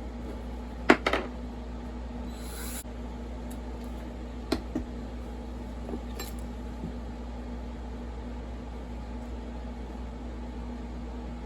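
A steel pick and small hand tools clicking and scraping against the metal parts of a Stihl MS460 chainsaw while prying out its oil pump. There are sharp taps about a second in and again around four and a half seconds, a brief scrape between them, and a few lighter ticks later, all over a steady low hum.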